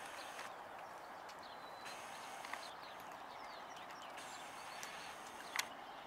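Faint short chirps and calls from a bird in a tree, which the watchers take for a mockingbird, over steady background noise. A single sharp click comes near the end.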